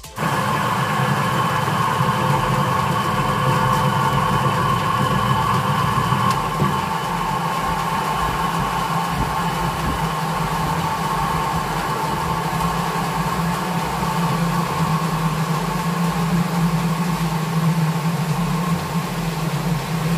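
Electric centrifugal spinner running steadily, whirling a basket of fried jackfruit chips to throw off the oil: a steady motor hum with a low tone that grows stronger in the second half.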